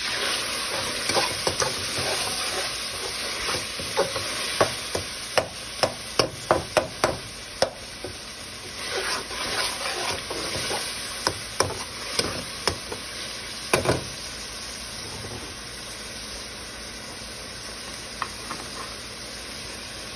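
Tomatoes, onions and spices sizzling in hot oil in a metal pan while a metal slotted spatula stirs them, clacking and scraping against the pan many times for the first fourteen seconds or so. After that the sizzle goes on alone, a little quieter.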